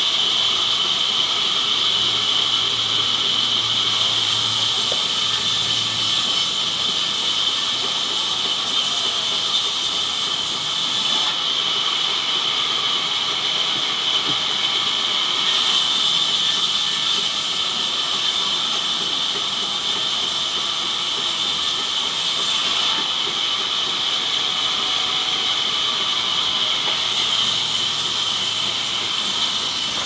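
Large band saw running and ripping a slab of banyan wood: a steady high-pitched hiss, turning harsher for stretches of several seconds, about four seconds in, again past the middle and near the end.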